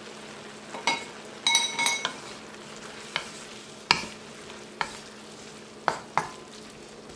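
Vegetables sizzling gently in a wok over lowered heat while a wooden spoon stirs them, knocking and scraping against the pan about eight times, with a brief ringing clatter about a second and a half in.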